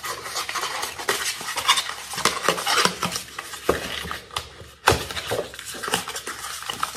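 Small kraft cardboard box being handled and opened by hand: rustling, scraping and light tapping, with a sharper knock about five seconds in.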